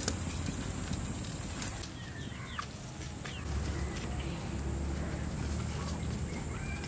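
Outdoor rural ambience: a steady high-pitched insect drone that stops about two seconds in, then a few short bird chirps, over a low rumble.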